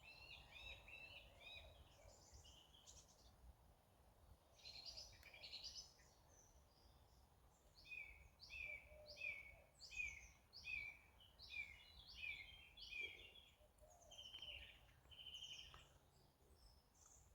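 Faint wild birdsong: several songbirds singing and chirping over one another, with one bird repeating a short note about twice a second for several seconds in the middle. A low steady rumble sits underneath.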